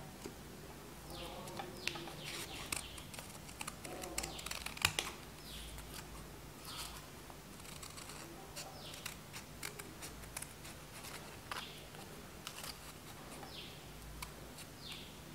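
Scissors snipping through folded paper: a string of small crisp cuts and clicks at irregular intervals.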